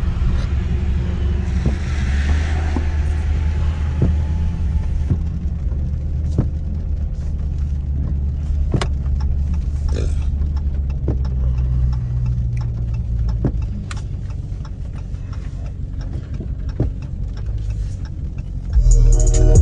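Low, steady drone of a Dodge Scat Pack's 392 HEMI V8 heard from inside the cabin, rolling slowly on a wet road, with scattered light ticks. Music comes in about a second before the end.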